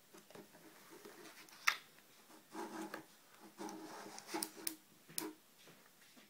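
Hands handling a clear plastic accessory tray and its card flap: rubbing and rustling with several sharp plastic clicks, the loudest about a second and a half in and a cluster of them near the end.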